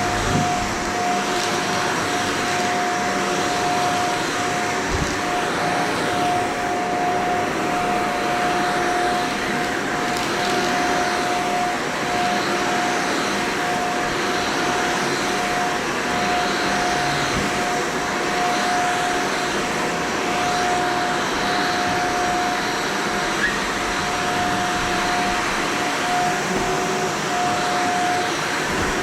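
Shark Vertex vacuum cleaner running steadily over carpet, a constant motor whine over the rush of airflow.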